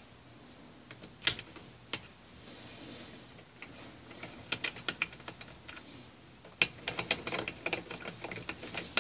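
Irregular sharp clicks and clinks of small metal bolts being handled and set into the top of a motorcycle engine's cylinders. The loudest click comes about a second in, and the clinks bunch together in the second half.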